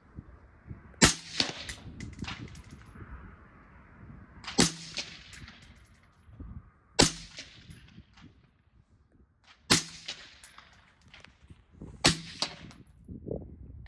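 AR-style rifle fired five times in slow, deliberate semi-automatic fire, a sharp crack every two and a half to three and a half seconds. Each shot is followed about a third of a second later by a fainter second crack.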